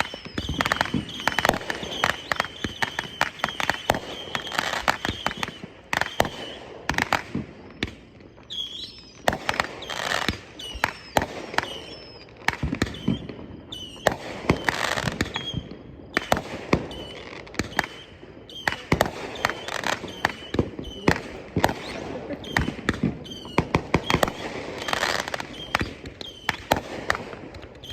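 Consumer fireworks going off: a long run of sharp cracks and pops in dense clusters, with a high whistle over the first six seconds or so.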